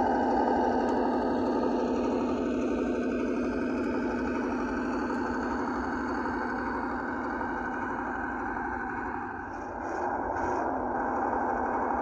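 Engine sound of a 1:12 RC ZIL-131 model truck, a V8 running steadily, fading slightly and dipping briefly with a few faint clicks near the end.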